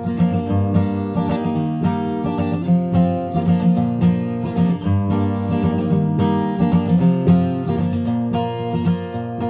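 Acoustic guitar strummed in a steady rhythm of ringing chords, about three strokes a second, with no voice: the song's instrumental intro.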